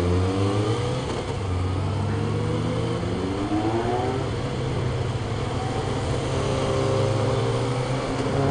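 Motorcycle engine running under way in traffic, its pitch rising in several stretches as the rider accelerates, over steady wind and road noise.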